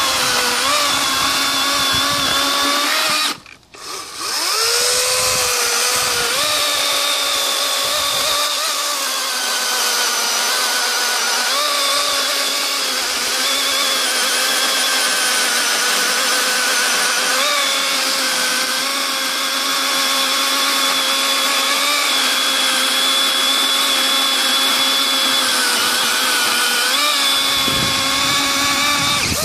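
Greenworks 80V brushless cordless chainsaw cutting through a log: a steady electric-motor whine with chain rattle, its pitch wavering slightly as it cuts. About three seconds in it cuts out for a moment and spins back up, and it winds down right at the end.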